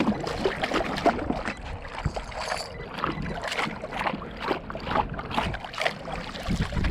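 Water sloshing and splashing in irregular strokes as a red drum (redfish) is held in the water to revive it before release.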